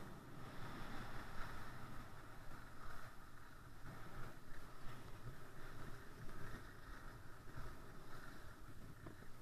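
Skis sliding over groomed snow on a downhill run, with wind rushing over the camera microphone: a steady, uneven hiss and rumble.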